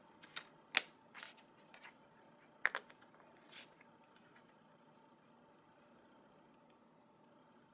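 A few sharp small clicks and light scratching from LEGO minifigure parts and a blind-pack packet being handled, dying away after about four seconds into faint room tone.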